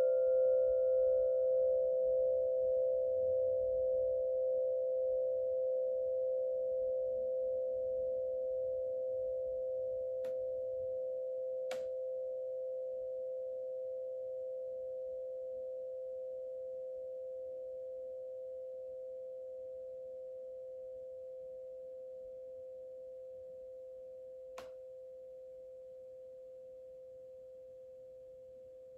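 A struck metal sound-healing tone (singing-bowl or tuning-fork type) ringing on with a slow, wavering beat and fading gradually. A brighter overtone dies away in the first few seconds. Faint clicks come about ten, twelve and twenty-five seconds in.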